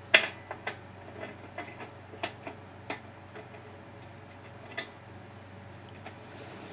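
Scattered sharp clicks and ticks from hands working the end and cover of a sheet-metal fluorescent light fixture, loosening it to open it up; about ten irregular clicks, the first the loudest.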